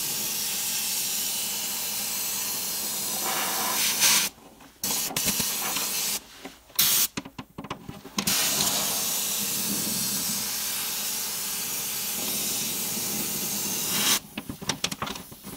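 Compressed-air undercoating sprayer hissing as it sprays rust-proofing oil through a wand into a frame crossmember. It runs in long steady blasts, broken by a few short bursts and pauses between about four and eight seconds in. It stops about a second before the end, and a few light clicks and rattles follow.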